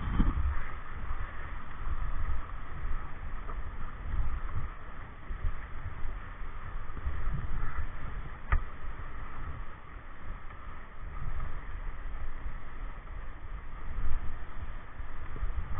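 Wind buffeting the microphone in gusts over the steady rush of whitewater, with one sharp click about eight and a half seconds in.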